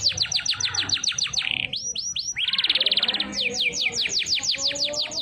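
Domestic canary singing: fast runs of high whistled notes that each sweep downward, about eight a second, broken near the middle by a short buzzy trill before the sweeping notes resume.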